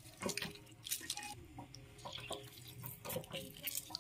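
Lemon juice squeezed from a lemon dripping and trickling onto raw chicken pieces in a steel bowl: an irregular patter of small wet drips and clicks.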